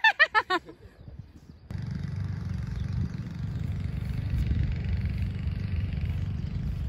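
A person's voice in a few quick bursts at the very start. After a cut, steady wind rumbling and buffeting on the microphone, mostly low and rough.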